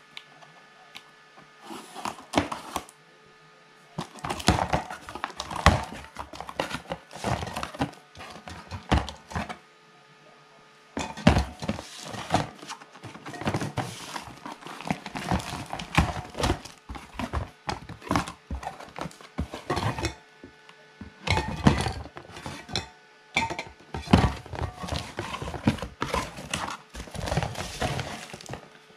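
Cardboard boxes of spray paint cans being cut open and unpacked: a knife slitting packing tape, cardboard flaps scraping and thumping, and metal aerosol cans knocking together. The knocks and rustles come irregularly, with a short pause about ten seconds in.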